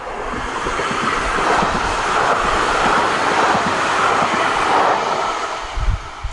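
Light-rail train passing by on its track, a rush of wheel and running noise that builds, holds loud for a few seconds, then fades as it moves away. A few short low thumps near the end.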